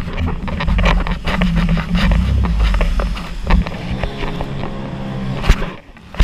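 Jet ski engine running under throttle over choppy water, with wind on the microphone and rushing spray. Several sharp knocks as the hull slaps the waves; the engine note bends around four seconds in and eases off near the end.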